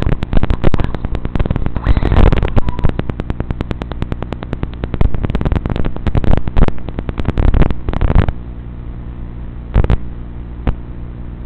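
Heavily degraded analog FPV audio from an RC car: dense crackling and clicking over a steady low electrical buzz. A little after eight seconds the crackle stops, leaving a quieter hiss and buzz broken by a few single clicks.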